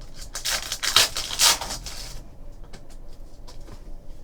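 Trading cards and their packaging being handled at a table: a scratchy rustle lasting about two seconds, then a few light clicks.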